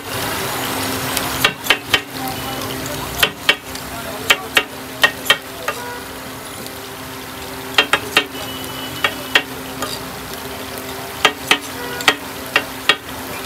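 Metal spatulas chopping chicken and clanging against a flat griddle in quick runs of two to four strikes, over the steady sizzle of chicken frying in oil.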